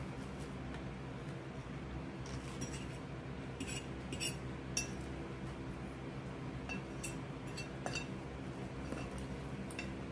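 Eating utensils clinking against dishware several times, short sharp clicks spread out over a steady low hum.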